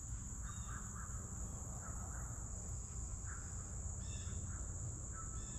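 Steady, high-pitched insect chorus, with a few faint short chirps scattered through it.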